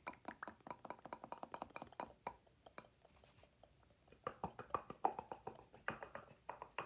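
Fingernails tapping very fast, a dense run of sharp clicks layered with mouth sounds; the clicking thins out about halfway through, then comes back louder.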